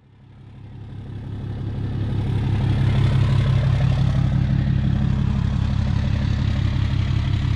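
A motor vehicle's engine running steadily at low speed, a low even hum that fades in over the first couple of seconds and then holds.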